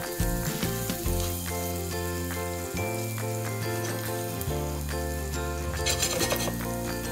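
Garlic and bacon sizzling in butter in a nonstick frying pan while being stirred with a spatula, under background music with low held notes.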